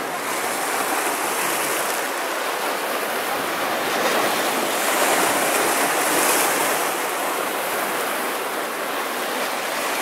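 Sea waves washing and churning over a rocky shore: a steady rush of surf that swells a little towards the middle.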